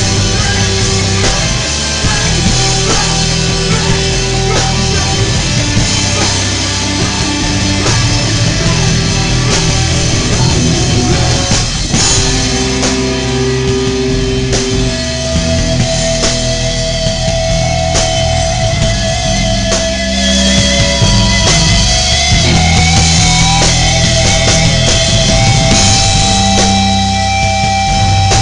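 A hardcore band playing loud and live, with distorted electric guitars and a drum kit. Some notes are held out through the second half.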